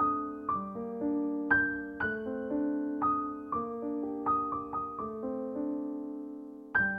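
Background music: a slow, gentle piano melody, single notes struck about every half second to second, each ringing out and fading, with a longer fading pause near the end before a new chord.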